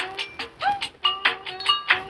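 Samsung GT-C3592 mobile phone ringtone playing: a looping electronic melody of short notes, some swooping up, over a quick percussive beat.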